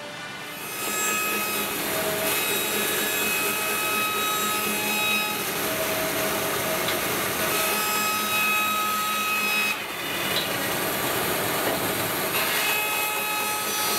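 Band saw ripping a glued-up panel of mixed wood strips into narrow strips: a steady cutting noise with a whine over it. The sound dips briefly about ten seconds in, then carries on.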